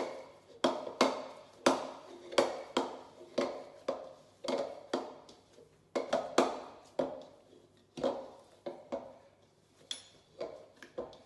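Naan dough being mixed and kneaded by hand in a mixing bowl: irregular knocks and slaps of the dough and bowl, about two a second.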